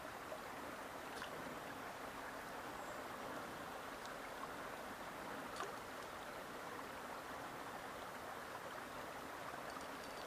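A small stream's water running steadily, with a few faint ticks.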